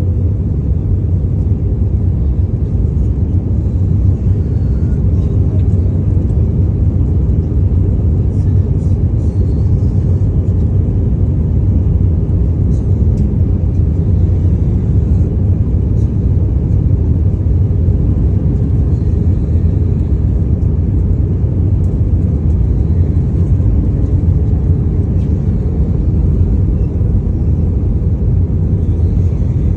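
Airliner cabin noise: a steady, even low rumble of the engines and airflow.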